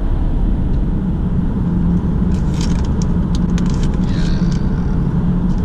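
Road and engine noise inside a moving car's cabin: a steady low rumble. A few faint clicks and a short rustle come in the middle.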